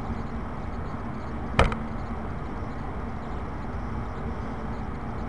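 A single sharp knock about one and a half seconds in, over a steady low rumble of room noise.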